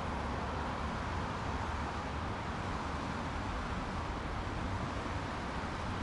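Steady road-traffic ambience: an even, continuous wash of vehicle noise with no single car pass or horn standing out.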